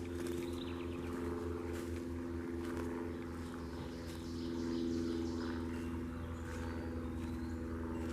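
Steady drone of an engine running, with a pulsing low rumble underneath, joined by light footsteps rustling and crunching on leaf litter and twigs.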